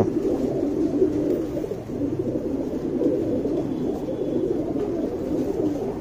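Domestic pigeons cooing, several coos overlapping without a break.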